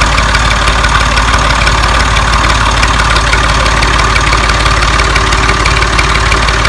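Carrot washing machine running: a loud, steady, unbroken mechanical drone with an engine-like rumble.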